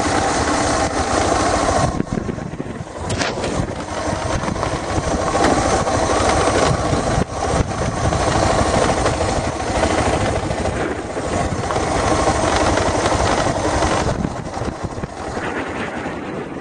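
Car engine running with a steady rushing noise while the car drives. It gets a little quieter a couple of seconds before the end.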